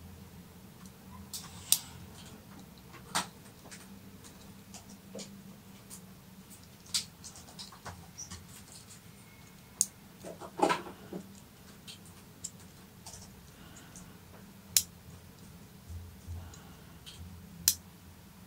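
Handmade mini revolver's steel mechanism being worked by hand: about seven sharp metal clicks a few seconds apart as the cylinder is turned and the hammer moved. A duller rattle of handling comes a little past halfway.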